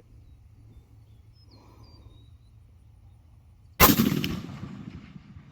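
A single shot from a .308 Remington 700 bolt-action rifle, about four seconds in. Its sharp report echoes and fades away over about a second and a half.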